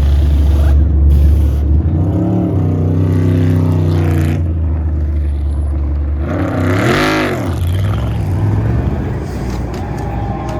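NASCAR Cup Series stock cars' V8 engines running at speed on the track: a steady loud drone, with cars passing at about two and seven seconds in, their engine pitch swelling up and then falling away.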